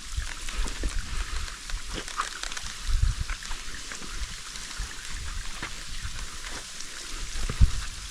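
Steady rushing hiss of a waterfall's falling water and spray, with a few low thumps over it, the loudest near the end.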